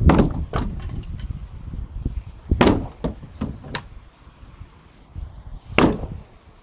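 Heavy blows striking a wooden floor joist to knock it loose during demolition: three hard strikes about three seconds apart, with lighter knocks between them.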